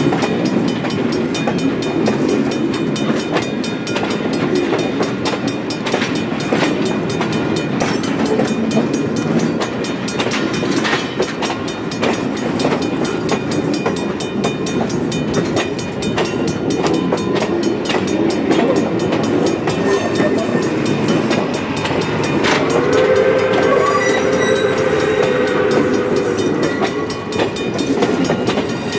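Pere Marquette 1225's excursion train rolling past, its wheels clicking steadily over the rail joints. About three quarters of the way through, the train sounds a chord of several notes, held for about four seconds.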